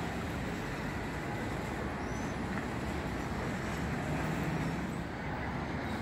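Steady city traffic noise: a continuous rumble of road vehicles passing.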